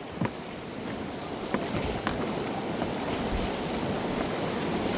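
White-water river rushing and splashing around a paddle raft as the crew paddles forward, growing steadily louder, with a few sharp splashes.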